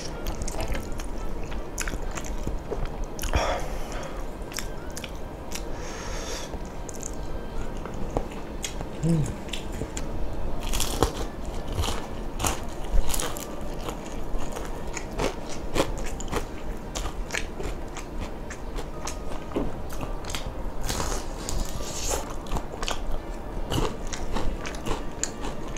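Crisp bites and crunchy chewing of deep-fried chicken skin, close to the microphone, with many sharp crackles scattered through the chewing.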